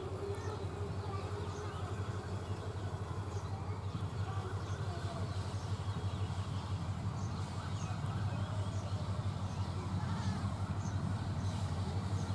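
Diesel locomotive engine running at low power as the train rolls slowly closer, a steady low drone that grows gradually louder. Birds chirp over it.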